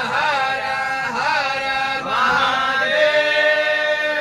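A man chanting a devotional hymn in a slow, melodic style, the notes gliding and bending, then settling into a long held note over the last second or so.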